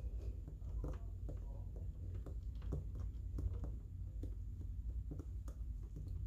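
Irregular light taps, clicks and paper rustles of stationery and paper being handled during journaling, over a steady low hum.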